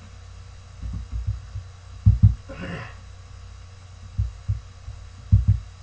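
Dull low thumps, several of them in quick pairs, with a short spoken syllable about halfway through.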